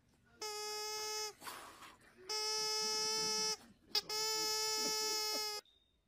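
A dog's squeaky toy pressed in its jaws, giving three long, steady squeaks of even pitch, each lasting about a second or longer.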